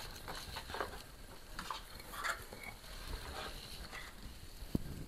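Hands crumbling a root ball and working loose, perlite-heavy potting mix in a pot: soft, scattered rustling and crackling of soil and grit, with one sharper tap near the end.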